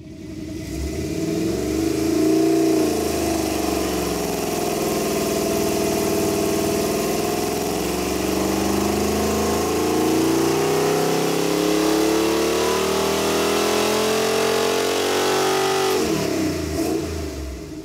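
Stock 350 Chevrolet small-block V8 with shorty headers running on an engine dyno in a baseline power pull. It revs up about two seconds in and settles back, then climbs slowly in RPM under load for about ten seconds before dropping off near the end.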